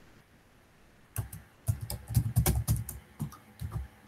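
Typing on a computer keyboard: after about a second of quiet, an irregular run of keystrokes.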